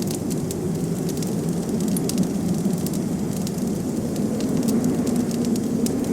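Wood fire crackling, with frequent small pops and snaps over a steady low rumble of wind-blown snow.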